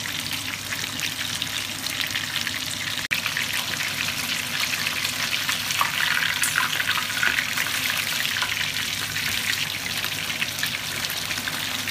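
Floured chicken pieces shallow-frying in hot oil in a wide pan: a dense, steady sizzle and crackle, with a short break about three seconds in.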